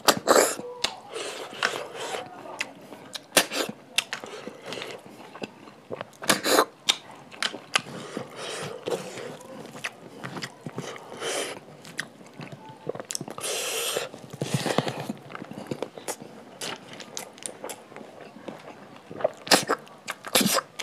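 Close-miked eating of snail curry and rice by hand: snails sucked from their shells in short, sharp slurps, with chewing, wet lip smacks and clicks.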